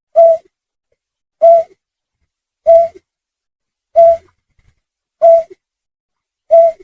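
Lure-call recording of a snipe: one short, low, hooting note repeated at an even pace, about every one and a quarter seconds, six times.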